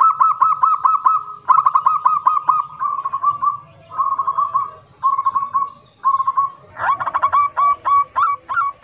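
Local zebra dove (perkutut) singing its loud, deep "kerot nguwor" song. It starts with fast runs of short cooing notes, about eight a second, eases into softer rolling trills in the middle, and picks up again near the end with a slower run of sharper, upswept notes.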